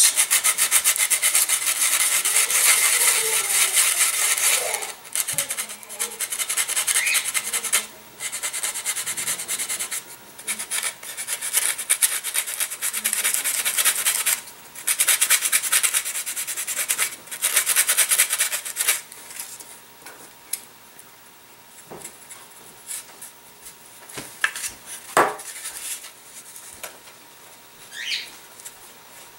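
Hand sanding with a small piece of sandpaper on the wooden spacer blocks of a balsa and plywood model fuselage, taking them down flush with the blind nuts. It goes as quick back-and-forth scraping strokes in spells of a few seconds with short breaks, and stops about two-thirds of the way through. After that there are only light taps and handling noises.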